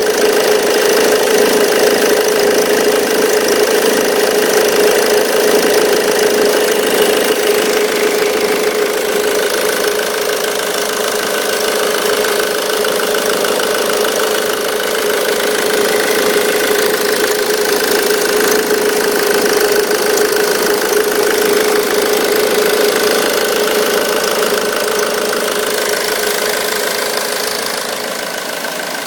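Ford Mondeo Mk3 2.0 TDCi diesel engine idling steadily, with a squeak and rattle from the auxiliary drive belt tensioner: a sign of a faulty tensioner.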